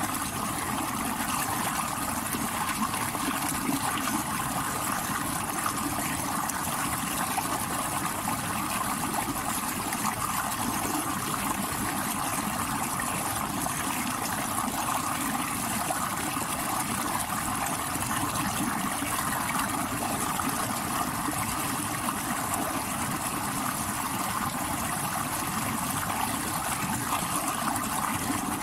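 Mountain stream rushing over rocks: a steady, even rush of water with no breaks or changes.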